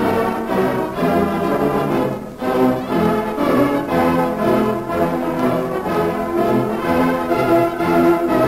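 Orchestral music with brass, playing as the closing theme of a 1930s radio drama. There is a brief lull about two seconds in.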